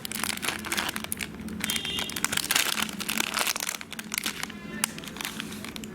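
Background music over dense, irregular crinkling and crackling, loudest in the middle of the stretch.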